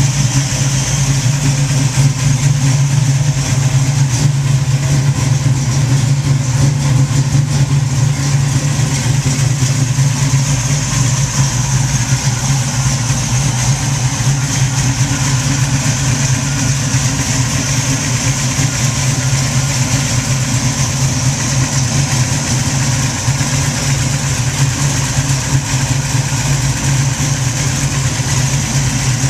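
Warmed-up 468 cubic-inch big-block V8 with a Mutha Thumpr roller cam, idling steadily.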